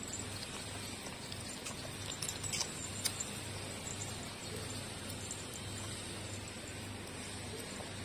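Puppies suckling at their mother's teats, with a few small wet smacking clicks about two to three seconds in, over a steady hiss and low hum.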